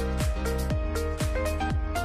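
Electronic background music with a steady beat, about two beats a second, under a stepping synth tune.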